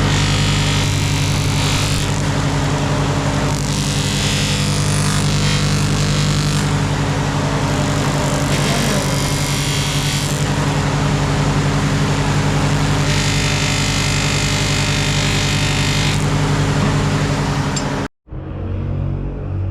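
A motor running steadily with a low hum, with a hiss rising over it for a few seconds at a time, several times over. Near the end it cuts off suddenly to a quieter sound.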